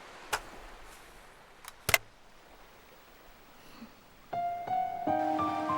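Piano music starts about four seconds in with a run of clear, ringing notes. Before it there is only faint background hiss with a few sharp clicks, the loudest just under two seconds in.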